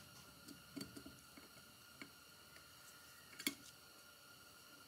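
Near silence with a few faint, sparse metal clicks and taps as a small screwdriver tip works at a tiny set screw on a Victor tonearm, the sharpest click about three and a half seconds in.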